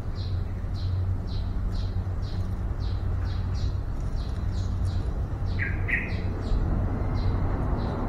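A small bird chirping over and over, about two short, high chirps a second, with two louder, lower notes close together a little past the middle. A steady low hum runs underneath.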